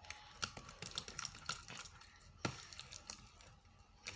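Faint, irregular small clicks and sticky crackles of clear slime being stirred in a container as it thickens with activator, with one sharper click about two and a half seconds in.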